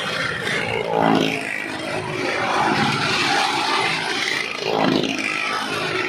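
Engines of stunt vehicles running hard as they circle the wall of a well-of-death drum, the sound swelling about a second in and again near the end.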